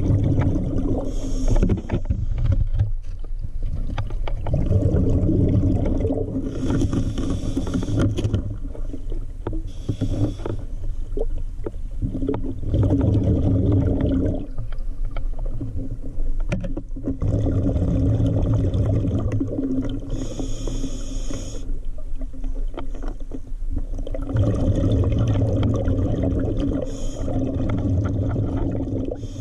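Scuba regulator breathing heard underwater: a short hiss on each inhale, then a long rumble of exhaled bubbles. There are about five breaths, one every six or seven seconds.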